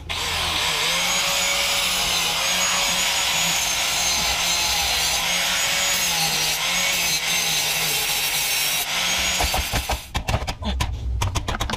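A corded power tool cutting through the steel exhaust pipe under the truck, with a steady grinding rasp and a motor pitch that wavers under load. The cutting stops about ten seconds in, followed by a few knocks.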